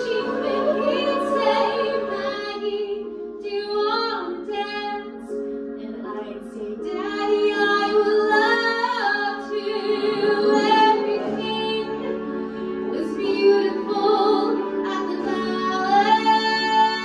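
Three women singing together into stage microphones.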